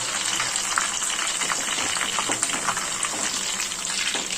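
Slit green chillies and curry leaves frying in hot oil: a steady sizzling hiss dotted with small crackles and pops.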